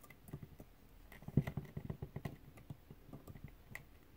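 Small flush-cut snippers working at old wiring and solder on a toy-car light part: a run of light, irregular clicks and snips, the loudest about a second and a half in.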